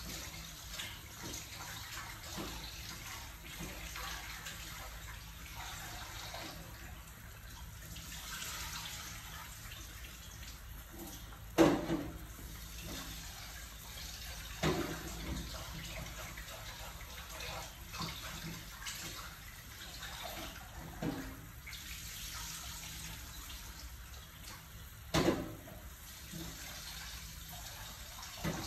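Pot of soup with vegetables and pork meatballs at a rolling boil, bubbling steadily. Three sharp clicks stand out, about twelve, fifteen and twenty-five seconds in; the first is the loudest.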